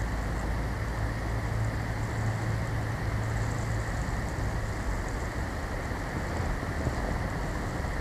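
Steady wind noise during a snowstorm: an even rush of wind with wind buffeting the microphone, over a steady low hum.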